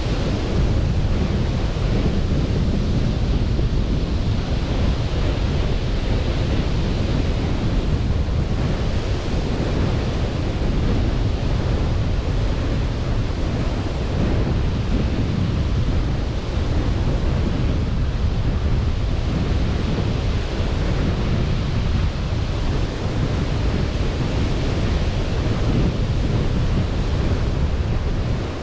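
Sea surf washing onto a beach, with wind buffeting the microphone: a continuous rush, heaviest in the low end.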